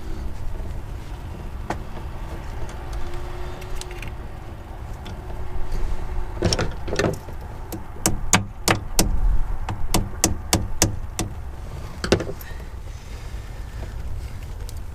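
New retaining clips being snapped onto a replacement throttle position sensor on a throttle body: a run of about a dozen sharp clicks and snaps in the middle stretch, over a steady low rumble.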